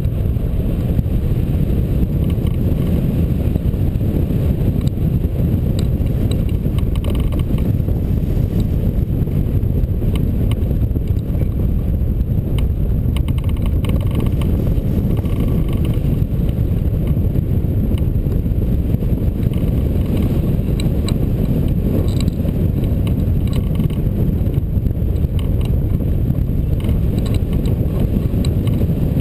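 Steady low rumble of rushing air buffeting the microphone of a camera mounted on a hang glider's wing in flight.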